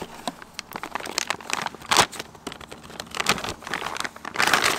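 Clear plastic wrap crinkling and crackling as a plastic-wrapped metal bracket is pulled out of a cardboard box. The crackles are irregular, with a loud one about two seconds in and a dense run near the end.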